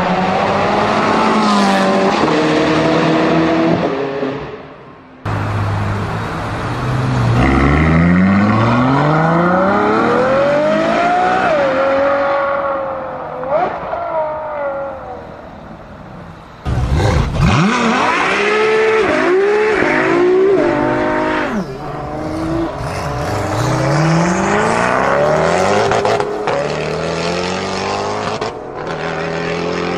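Car engine revving hard as it accelerates, its pitch climbing and then dropping back at each gear change, several times over. The sound is cut into edited pieces, breaking off abruptly about five seconds in and again a little past halfway.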